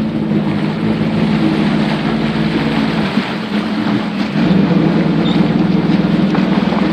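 Jet ski engine running steadily under way, getting louder about four and a half seconds in.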